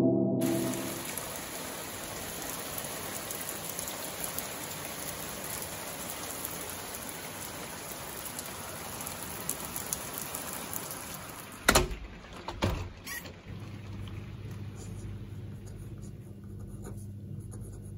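Rain falling steadily on paving slabs and gravel, heard through an open door as an even hiss. About twelve seconds in come two sharp knocks, then the rain gives way to a quiet room with a low steady hum.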